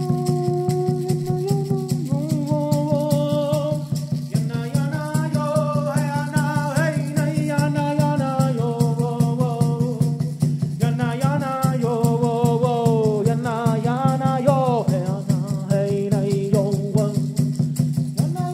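Ritual music: a peyote rattle shaken in a fast, even rhythm under a singing voice whose melody bends and slides, over a steady low drone.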